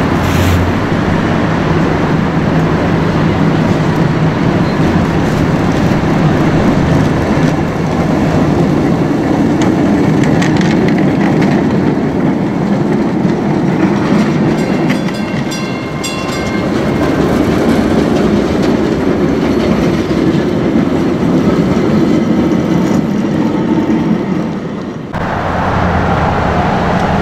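Vintage trams running past close by on street track, the steady rumble and clickety-clack of their wheels on the rails. A few faint high whining tones come in midway, and the sound changes abruptly near the end.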